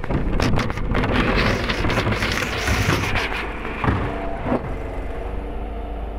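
Side-loader rubbish truck working beside the kerb: a broad rushing noise with clicks for the first three seconds or so, then a steady engine and hydraulic hum with a couple of clunks as the automated arm grips a wheelie bin and lifts it.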